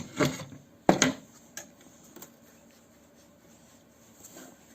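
Sharp metal clicks and knocks of hand tools working the windscreen wiper linkage shaft out of its bushing. There are a few strikes in the first second, the loudest about a second in, then two lighter ticks. The shaft is stuck in dry bushings.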